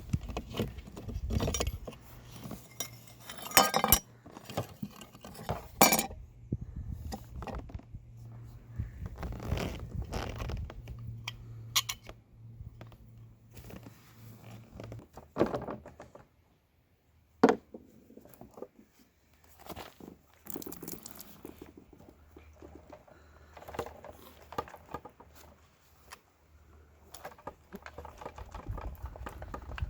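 Scattered metallic clinks, taps and knocks of small tools and chainsaw parts being handled, with a few sharper knocks among them.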